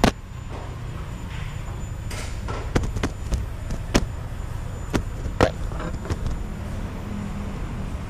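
Sharp knocks and taps of hands and tools working on a Yamaha NMAX 155 engine stripped down to its cylinder block, the loudest right at the start, over a steady low hum.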